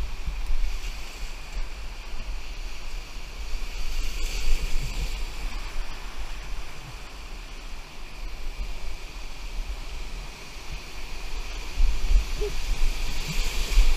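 Whitewater rapids rushing, with wind and water buffeting the microphone in a low rumble that grows louder near the end.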